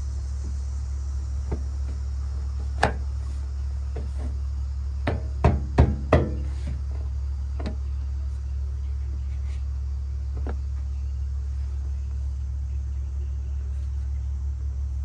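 A few sharp knocks and taps of tools on the truck's sheet-metal body, a quick run of them about five to six seconds in, over a steady low hum.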